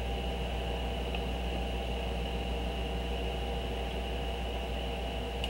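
Steady background hum and hiss: a low mains-type hum with a thin steady high whine, unchanging throughout.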